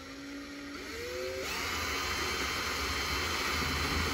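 Electric drill running with a twist bit boring into the wall of a plastic bucket. The motor's whine climbs in pitch about a second and a half in, then holds steady while the level slowly rises.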